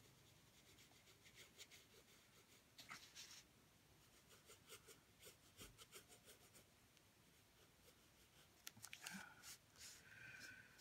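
Faint scratching of a graphite pencil on paper as short strokes are drawn, on and off.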